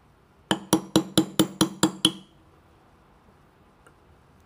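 Small brass hammer tapping a pin-removal tool eight times in quick succession, about five strikes a second, with clinking metal-on-metal strikes, driving the second extractor pin out of a Sig Sauer M11A1 pistol slide.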